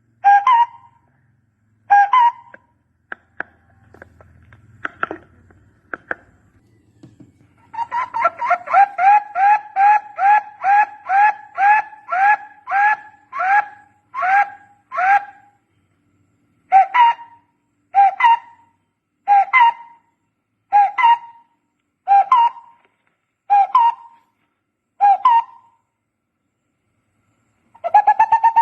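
Barbet calling: a repeated two-part hollow hoot, first in a quick run of about two notes a second, then slowing to one note every second and a half or so. This is the kind of call played to lure barbets to a decoy.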